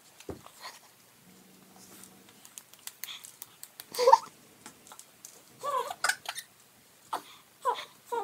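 Baby giggling and squealing in short bursts, loudest about four seconds in and again several times near the end, with a few light taps or claps before it.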